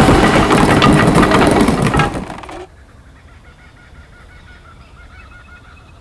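A man's hoarse yell over a loud rushing roar, both dying away about two and a half seconds in. Then it is much quieter, with faint short high chirps repeating several times a second.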